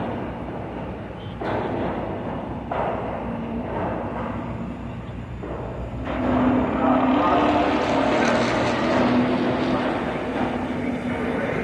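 Boat engines running with a steady low rumble and water noise; the sound gets louder about halfway through, with a muffled pitched sound mixed in.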